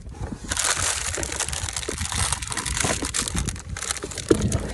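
Trash in a dumpster being rummaged through by hand: dense crinkling and crunching of bags and packaging, starting about half a second in and easing off near the end.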